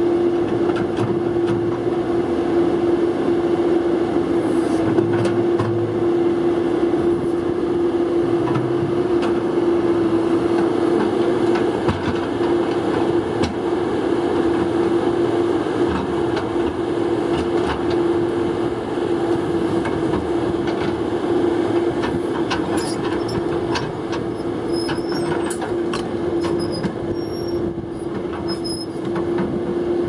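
A Kobelco SK235SR zero tail swing excavator's diesel engine runs with a steady whine while its quick coupler releases one bucket and picks up another. Sharp metal clanks and clicks come in the last several seconds as the coupler and bucket come together.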